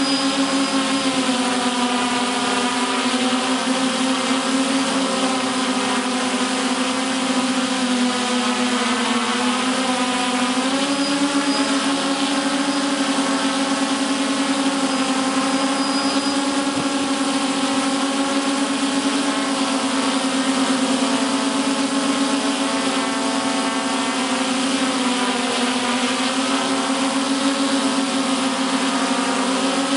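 Electric motors and propellers of a camera multirotor drone humming steadily in flight. The pitch wavers slightly and dips briefly about ten seconds in.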